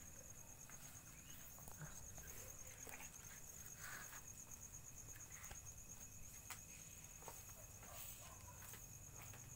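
Faint, steady, high-pitched pulsing trill of crickets, with a few soft scattered clicks.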